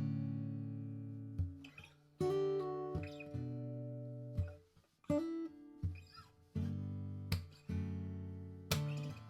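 Gibson Hummingbird acoustic guitar played unaccompanied: a series of chords struck one after another, each left to ring out and fade, with a few quicker picked notes between them.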